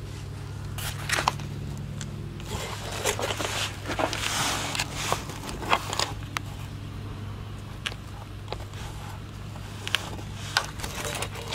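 Scraping, rustling and scattered sharp clicks of a camera being handled and repositioned under a van, over a steady low hum.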